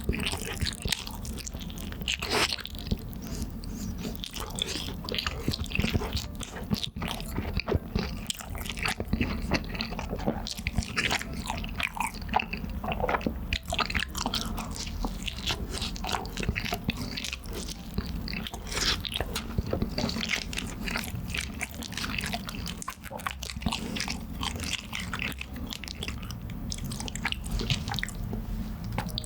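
Close-miked eating of Chicago-style cheese meatball pizza: continuous chewing and biting, with many small wet clicks and crackly mouth sounds.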